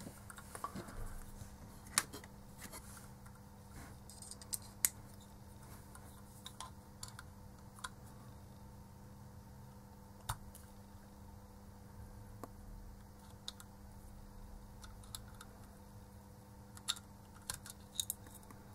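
Scattered small clicks and scrapes of a metal tool prying and wiggling at the foot contact inside an LED bulb's E27 screw base, with a quick run of clicks near the end. A faint steady hum sits underneath.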